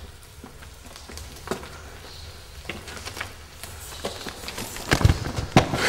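Footsteps and scuffs on rocky, gravelly ground: scattered crunches and clicks, with a couple of heavier thumps about five seconds in.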